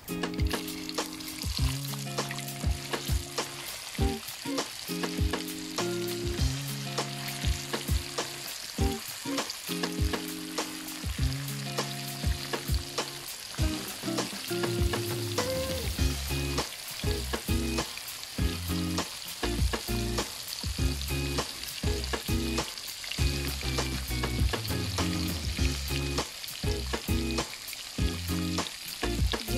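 Hot oil sizzling and bubbling around two whole fish deep-frying in a wok, with short pops and a slotted metal spatula moving the fish. Held low tones, changing about once a second, run underneath.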